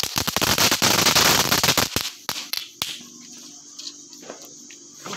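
Ground fountain firework (anar) spraying sparks: a loud rushing hiss with crackle for about two seconds, then a few sharp cracks as it dies down.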